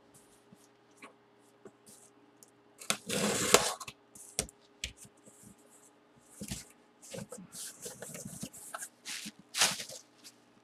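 Cardboard shipping box being opened by hand: a short loud rip about three seconds in, like packing tape torn off, then intermittent scraping, cardboard flaps and crinkling plastic wrap as the box is opened.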